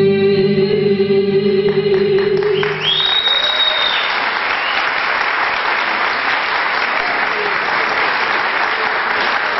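A woman's voice holding a long final sung note over accompaniment, which ends about three seconds in and gives way to audience applause, with a high whistle from the crowd just as the clapping starts.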